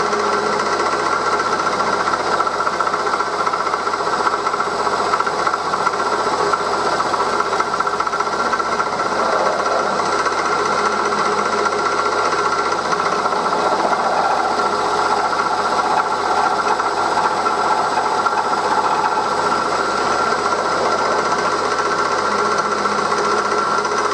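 1938 Bridgeport M-head milling machine running, its end mill cutting along the side of a metal cylinder block under flood coolant. It makes a steady machining noise with a constant whine over it.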